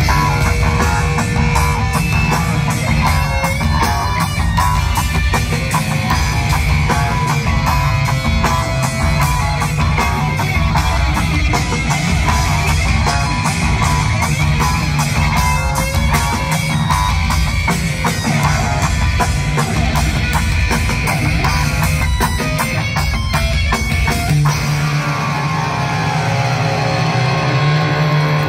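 Live heavy rock band playing an instrumental passage, with electric bass, electric guitar and drum kit, heard from within the audience. Near the end the drums fall away, leaving a held low note and sustained guitar.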